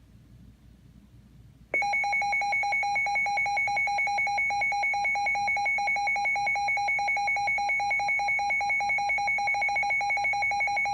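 Weather radio warning alert tone, starting about two seconds in: a loud, steady electronic tone in two pitches, pulsing rapidly, that signals an incoming warning broadcast.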